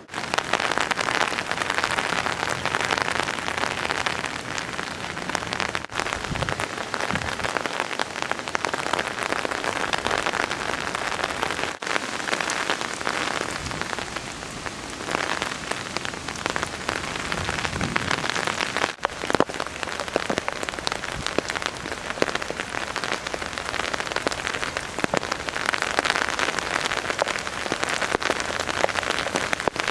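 Heavy rain falling and pattering on surfaces, a dense steady hiss of drops, with brief breaks about 6, 12 and 19 seconds in.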